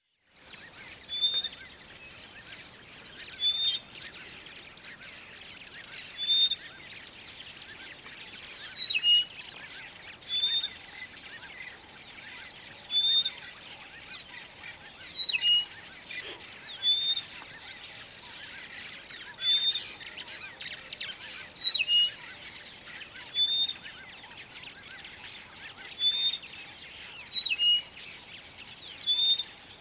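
A pair of rosy-patched bush-shrikes calling in courtship display: a short, clear whistled note repeated about every two seconds, some followed at once by a lower note.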